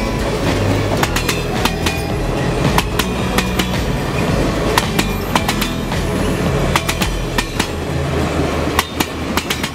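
Union Pacific passenger cars rolling past at speed: a steady low rumble with many sharp, irregular clicks and clatters from the wheels on the track.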